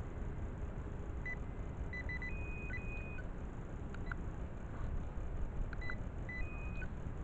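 Metal-detecting pinpointer beeping in short high chirps, two clusters about a second in and again near six seconds, with a few slightly higher notes held a little longer: it is signalling metal in the dug hole. A steady low rumble sits underneath.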